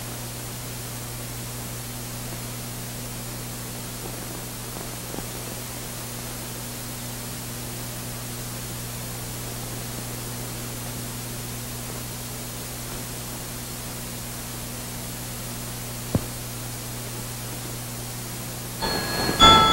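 Steady hiss and a low hum from an old film soundtrack, with one faint click about 16 seconds in. Near the end a mantel clock begins to strike, its ringing chime tones sounding at several pitches.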